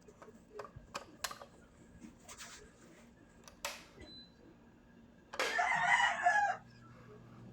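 A rooster crows once, a single call of about a second near the end, over scattered faint clicks and taps. A faint low steady hum sets in during the crow.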